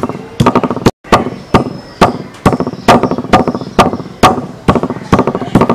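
Stone pestle pounding raw fish flesh into paste on a wooden board, in a steady rhythm of about two strokes a second, each blow followed by a few lighter knocks. The sound drops out briefly about a second in.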